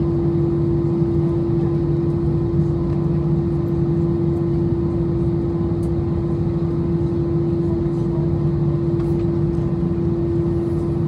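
Airbus A320's twin CFM56-5B turbofan engines heard from inside the passenger cabin: a steady drone with one constant tone over a rush of noise, holding level throughout.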